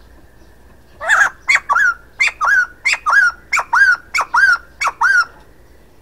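Male white-crested laughingthrush calling: a loud, rhythmic run of paired notes, each a short note followed by a longer arched one, about seven pairs over some four seconds, starting about a second in.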